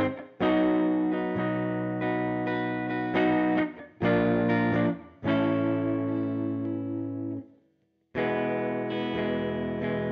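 Harley Benton DC-200 electric guitar on its neck humbucker, played through an almost-clean, slightly driven tone: a series of chords strummed and let ring, with short breaks between them and a brief silence before the last chord.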